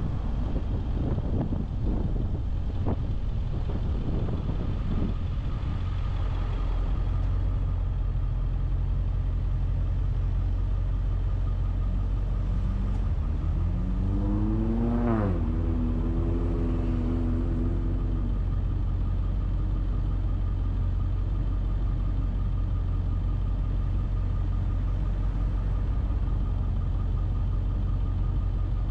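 Car driving: a steady low engine and road rumble. About halfway through, an engine note rises in pitch as the car accelerates, then holds level for a few seconds before fading back into the rumble.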